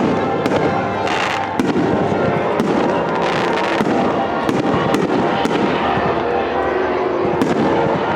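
Aerial fireworks bursting in a rapid string of sharp bangs, roughly one or two a second, over continuous crackling and rumble.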